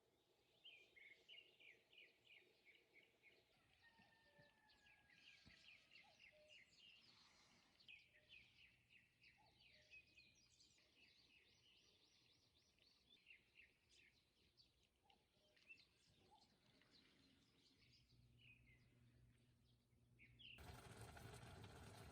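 Faint bird calls: many quick, repeated chirps. Near the end a steady, louder noise cuts in suddenly.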